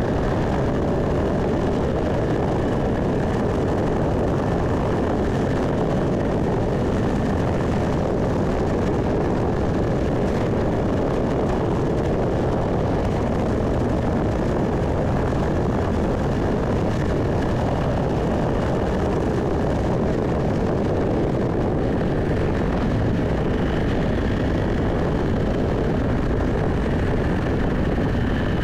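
Steady road and engine noise from a moving car, heard from inside the cabin.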